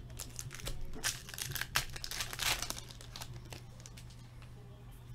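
Foil wrapper of a hockey card pack being torn open and crinkled, a quick run of crackles and a ripping stretch, then quieter once the cards are out near the end.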